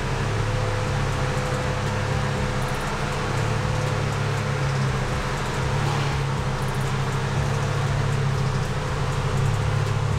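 Machinery running steadily: an even low hum with a faint, steady higher tone above it.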